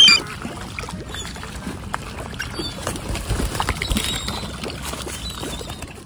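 A loud gull call cutting off at the very start, then water splashing and wing flaps from mute swans and gulls jostling in shallow water, with a few faint gull calls.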